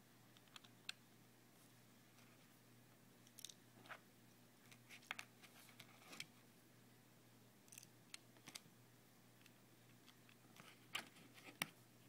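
Plastic LEGO bricks clicking and knocking as a LEGO puzzle box is handled and its pieces pulled out and pushed back in: a scatter of short, sharp clicks, the loudest near the end.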